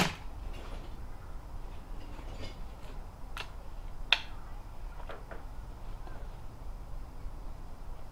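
A Slavia 624 break-barrel spring air rifle fires with a sharp report at the very start. Then come a few metallic clicks as the barrel is broken open to cock it, the loudest about four seconds in.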